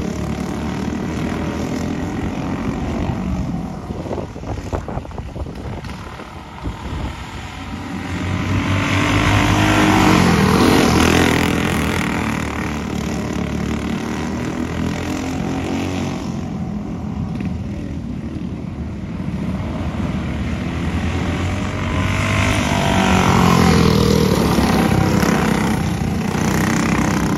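Engines of several winged dirt-track karts racing, a continuous buzzing drone whose pitch rises and falls as they accelerate and back off for the turns. The sound swells loudest as karts pass close by, about ten seconds in and again near the end.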